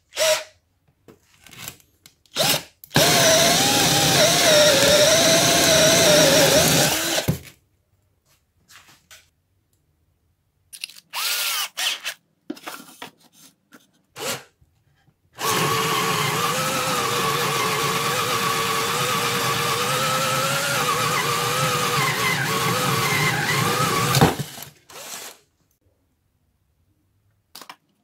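Cordless drill boring into a wooden board with a 16 mm spade bit. A few short trigger blips lead into a steady run of about four seconds, then more brief blips, then a longer steady run of about nine seconds with the motor whining under load.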